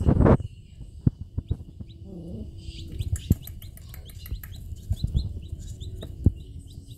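Baby chicks peeping: many short, high cheeps in quick succession, getting much busier about three seconds in. A loud thump right at the start and a few soft knocks are heard along with them.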